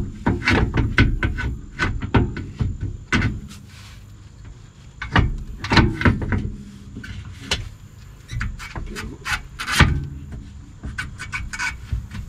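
Irregular clunks, knocks and scraping of metal parts being handled as a replacement steering rack and its bolts are worked into place under a car.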